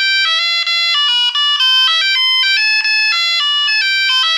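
Alcatel One Touch Easy mobile phone ringtone played back from an MP3: a fast melody of bright synthetic beeps, a new note every fraction of a second, with a wavering held note about half a second in and again near the end.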